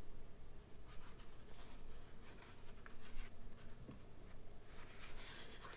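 Faint rustling and scratchy rubbing of hands handling a gadget and its packaging during an unboxing, in two spells: about a second in and again near the end.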